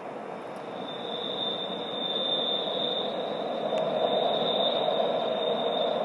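Steel wheels of a Rhaetian Railway train squealing in one steady high pitch on curved track, starting about a second in. Beneath the squeal is the rumble of the train running, which grows louder.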